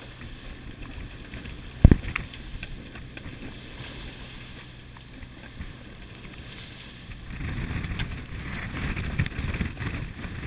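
Sailboat heeled over and driving through choppy water: water rushing and splashing along the hull, with wind buffeting the microphone. A single sharp thump comes about two seconds in, and the rushing grows louder from about seven seconds on.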